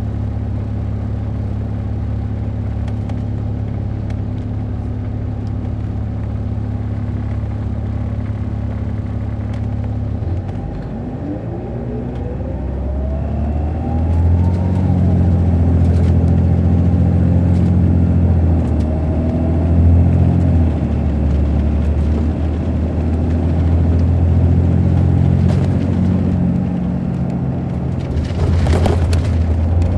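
Heard on board, the coach's Caterpillar C13 ACERT diesel runs steadily for about ten seconds. Then a whine rises in pitch and the engine grows louder and deeper as the bus pulls harder. A brief sharp noise comes near the end.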